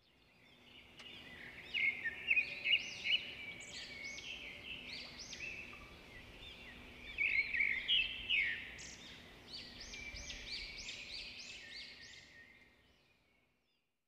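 Small birds chirping and calling, a busy run of short, quick up-and-down notes from about a second in, thinning out and stopping near the end.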